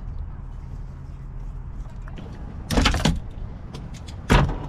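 Locking C-clamp pliers being released and pulled off a brass piano hinge and wooden hatch: two loud clacks about a second and a half apart, over a steady low hum.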